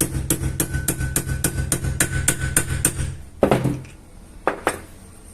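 Rapid light hammer taps, about five a second, on a small socket driving a ball bearing into a Torrey blender's housing, with a faint metallic ring. The tapping stops about three seconds in, followed by two heavier, duller knocks.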